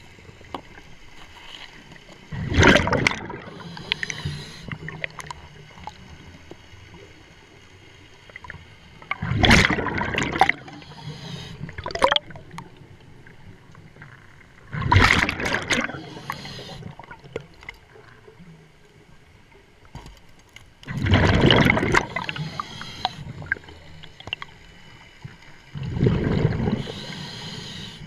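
Scuba diver breathing through a regulator underwater: five loud bursts of exhaled bubbles, one about every six seconds, with a softer hiss between them.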